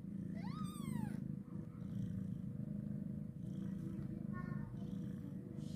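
Mother cat purring steadily while her newborn kittens nurse, with one high, arching kitten mew about a second in and a shorter, fainter squeak near the middle.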